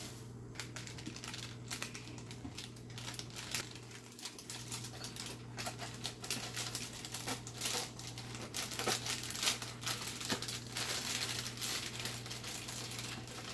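Thin plastic bag of brownie mix crinkling and rustling as it is handled, with irregular crackles throughout that are busiest in the second half.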